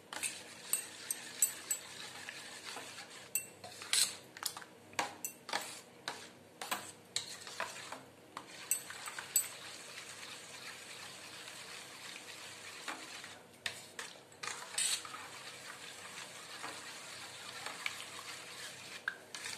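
Metal spoon stirring milk powder into hot water in a stainless steel bowl, clinking and scraping irregularly against the bowl over a soft swish of liquid, most often in the first half.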